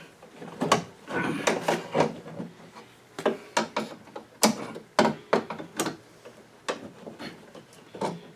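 Irregular sharp clicks and knocks with some rubbing, a dozen or so in all, from hands and a tool working the 1999 GMC Yukon's inner door handle actuator rod and latch parts inside the door while the rod is being bent.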